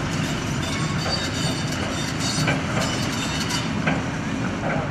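Demolition noise: a continuous heavy rumble with crackling and clattering, the sound of concrete breaking and debris falling as a damaged building is brought down by machinery.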